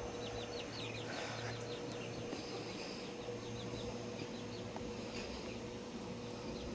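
A bird chirping in a quick run of short high calls during the first few seconds, over a faint steady hum.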